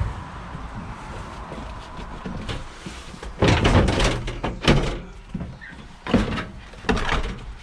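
Knocks and clunks from taking apart a scrapped dishwasher or washing-machine motor with hand tools: quieter for the first three seconds, then a quick cluster of knocks and a few more near the end.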